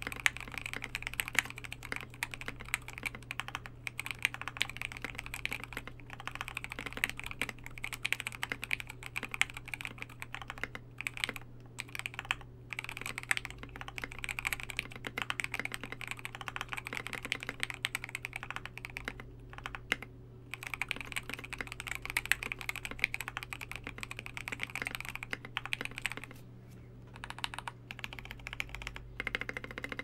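Fast, continuous typing on a KBD67Lite 65% custom mechanical keyboard with lubed ThicThock Marshmallow switches on a polycarbonate plate and PBT KAT-profile keycaps. The keystrokes are deep and thocky, with a few brief pauses.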